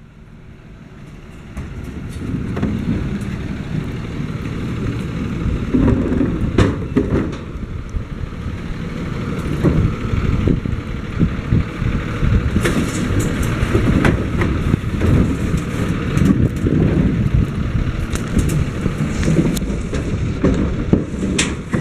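Cart delivery truck's engine running with a steady low rumble that grows louder over the first couple of seconds, with scattered knocks and rattles over it.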